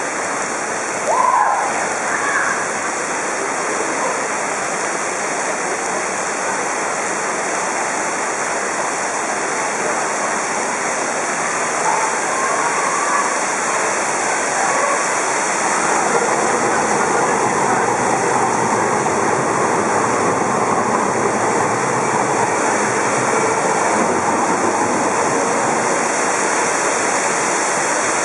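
Heavy downpour: a dense, steady hiss of rain pouring onto roof and paving, growing a little louder about halfway through.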